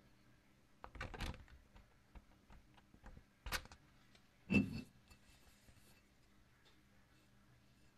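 Light handling sounds at a stopped lathe: a few faint rustles and taps, then one louder knock with a short ring about four and a half seconds in as the plastic workpiece is taken out of the chuck.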